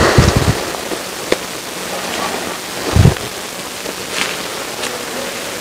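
Steady outdoor hiss, with low thumps on the microphone just after the start and again about three seconds in, and a few faint clicks.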